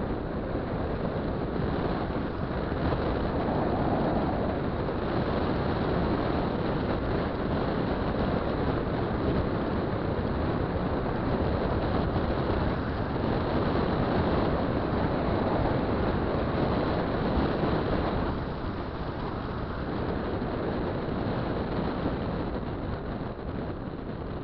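Wind rushing over the microphone with a 50 cc two-stroke scooter engine running underneath while riding along; the noise eases off after about eighteen seconds.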